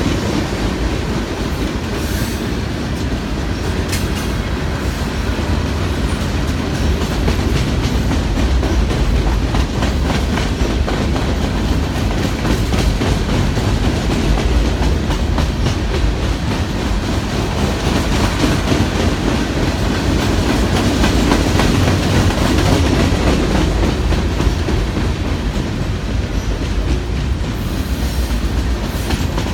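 Cars of a CN freight train rolling past, with steady rumbling and the wheels clacking over the rail joints.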